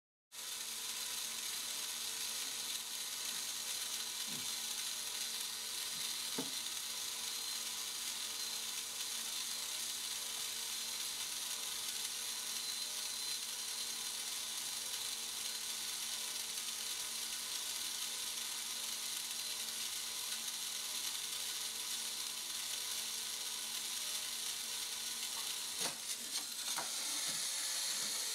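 Steady room hiss with a faint electrical hum, broken by a few light clicks and knocks, most of them near the end.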